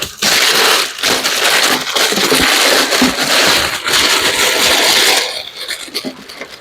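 Paper packaging being handled and crumpled: a continuous crinkling rustle that tapers into a few lighter rustles about five seconds in.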